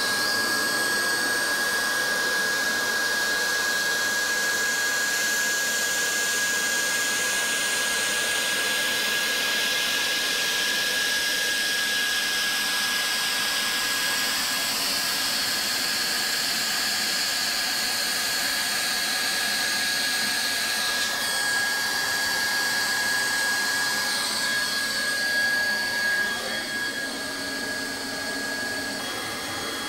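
Hot-air welding gun blowing steadily: a constant rush of air with a high, even whine from its blower, used to heat vinyl welding rod into a floor seam.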